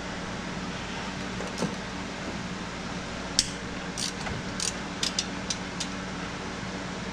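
Several sharp metallic clicks about half a second apart, from a little past the middle, as the cam bearing cap bolts on a 4.6 L two-valve V8 are loosened with a hand tool. A steady hum runs underneath.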